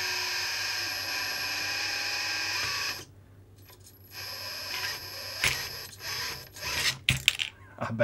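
Kabolite K961 RC hydraulic excavator's pump running with a steady whine as the arm is worked, cutting off sharply about three seconds in. After that come scattered clicks and knocks of the moving arm and attachment.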